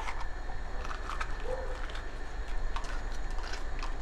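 Knife cutting and trimming fresh red peppers, a few short crisp snaps and clicks scattered through.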